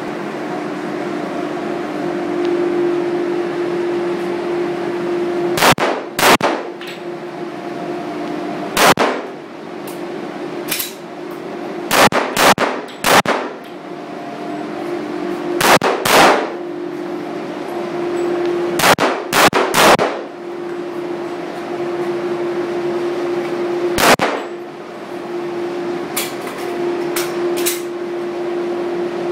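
Springfield XD-M semi-automatic pistol in .45 ACP firing about a dozen shots, mostly in quick pairs and threes with pauses between, and a few fainter shots near the end. A steady hum runs under the shots.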